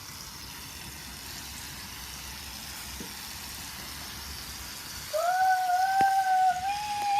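A steady soft hiss, then about five seconds in a child's voice holding one long, high 'ooh', wavering slightly.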